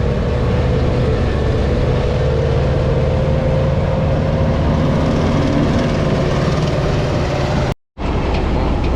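Heavy diesel engine running steadily under way, with a steady whine over the engine's drone. It cuts out abruptly for a split second near the end.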